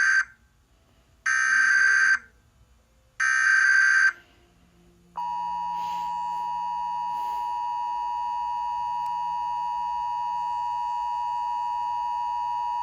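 Emergency Alert System SAME header: the tail of one burst of screechy digital data tones, then two more bursts about a second apart. After a short pause, the NOAA Weather Radio warning alarm tone sounds as one steady, piercing tone for about eight seconds and then cuts off, signalling that a warning broadcast follows.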